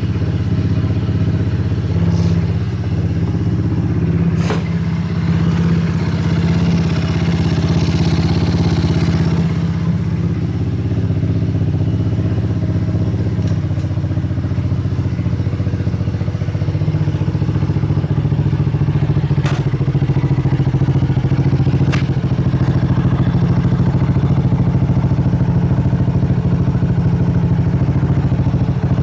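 Dirt bike engine idling steadily through its custom-packed muffler, a little louder from about halfway through. A few sharp clicks sound over it.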